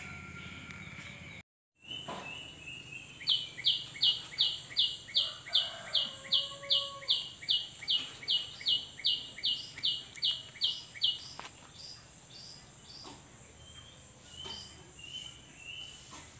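Garden ambience: a steady high insect drone, with a bird repeating a short high call about three times a second for some eight seconds, then a few softer chirps near the end.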